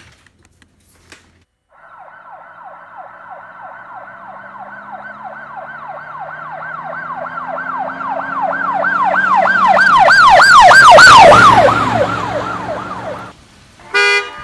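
Police siren in a fast yelp, about three sweeps a second. It grows steadily louder as it approaches, peaks and drops in pitch as it passes, then cuts off suddenly. A brief loud tone follows near the end.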